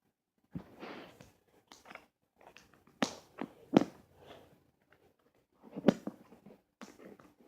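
Play-Doh tubs handled: irregular plastic knocks and clicks, with rustling and scraping between them, the sharpest knocks about three seconds in, again just under a second later, and near six seconds.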